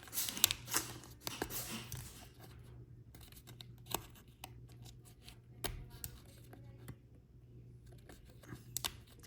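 Small plastic model-car kit parts being handled and pulled apart: scattered light clicks and snaps with some rustling, busiest in the first couple of seconds.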